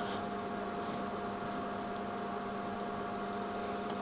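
Small electric motor running at a steady speed, a steady hum with a faint whine over it.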